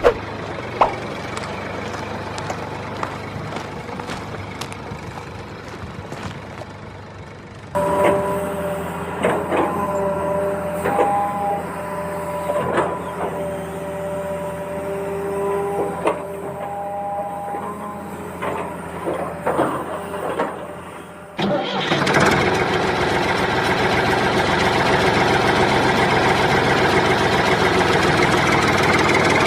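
Small engine of a homemade mini tractor running, in three abruptly cut sections. The middle section carries a steady whine with clicks and knocks over it, and the last section is louder and steady.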